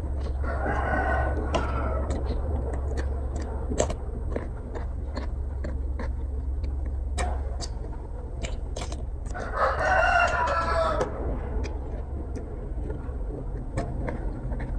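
A rooster crows twice, once about a second in and again near ten seconds in, each crow lasting over a second. Close-up chewing and mouth clicks come and go between the crows, over a steady low hum.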